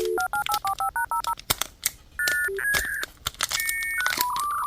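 Telephone dial tone cutting off, then a quick run of about a dozen touch-tone keypad beeps, followed by more electronic beeps and tones, with sharp clicks throughout.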